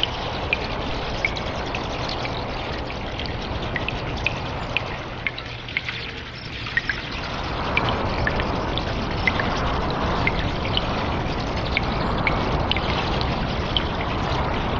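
Water trickling and dripping in a cave: a steady rush of running water with many small, quick drips over it. The flow eases briefly about six seconds in, then swells again.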